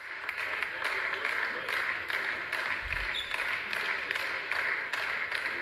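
Crowd noise in a basketball gym: a steady din of voices with sharp clicks several times a second, a brief high squeak about three seconds in.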